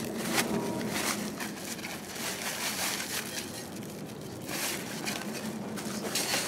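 Gritty sand-and-aggregate mix sliding and pouring off an aluminium sandbag-filling shovel into a woven plastic sandbag, with the bag rustling and crinkling as it is lifted and set down. The sound comes in uneven gritty bursts.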